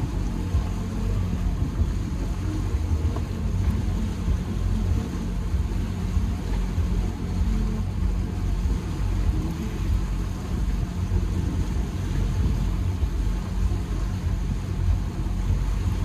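Steady low rumble of a running engine, unchanging throughout, with a faint hum underneath.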